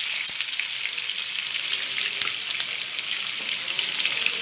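Spices and garlic paste sizzling in hot oil in a frying pan: a tempering of cumin, mustard seeds, asafoetida and chopped green chillies, a steady sizzle dotted with small crackles and pops.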